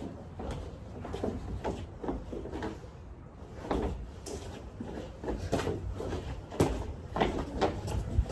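Irregular thuds and slaps of boxing gloves during light sparring, one every half second or so, with one sharper, louder hit about two-thirds of the way through.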